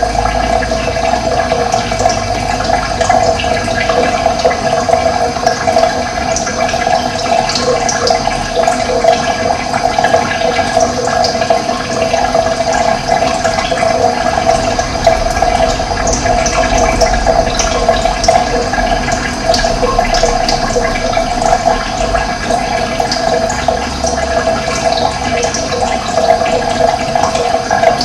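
Running water flowing steadily, a loud, even rushing like a stream or small cascade.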